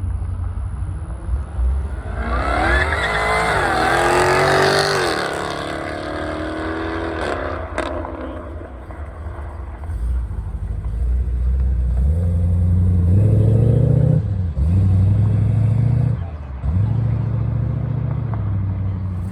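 Car engines revving and accelerating away. One climbs sharply in pitch a couple of seconds in and falls away. Then a deeper engine pulls away in rising runs, broken twice by short dips near the end.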